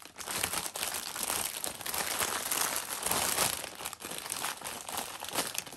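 Thin plastic bags crinkling and rustling in the hands as a bundle of small bagged diamond-painting drills is pushed into a larger clear plastic bag.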